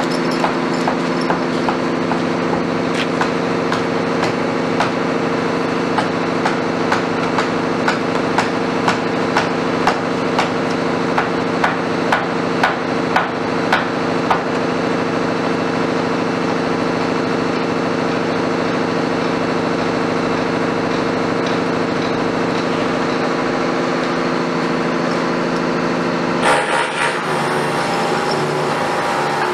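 Liebherr 924 wheeled excavator's diesel engine running steadily, with a series of sharp knocks, one or two a second, through the first half. About 26 seconds in, the engine note changes and a hiss joins it as the hydraulics lift the grapple.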